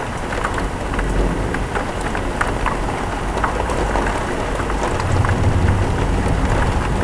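Heavy thunderstorm rain pouring steadily, with many sharp drops pattering on a near surface. A low rumble of thunder swells about five seconds in.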